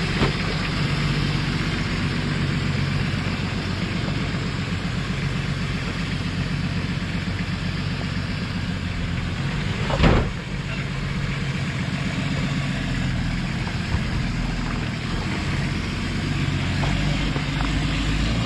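Nissan Patrol GR off-roader with its engine running steadily. A single sudden thump about ten seconds in.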